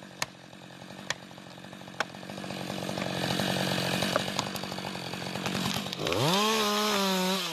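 Chainsaw engine running, with three sharp clicks in the first two seconds, then revved up quickly about six seconds in and held at high speed near the end.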